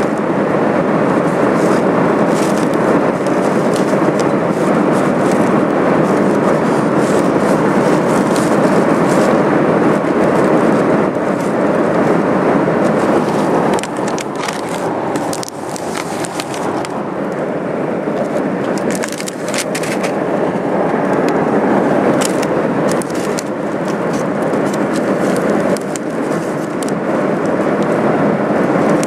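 Steady rushing airliner cabin noise from the engines and airflow, with short crinkles and crackles from a foil potato chip bag being handled.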